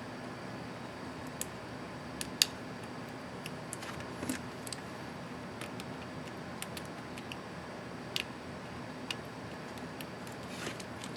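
Scattered light plastic clicks and taps, about a dozen, from handling the backspace keycap and its scissor retainer clip on an ASUS ZenBook UX31E laptop keyboard. The sharpest click comes about two and a half seconds in, over a steady low hiss.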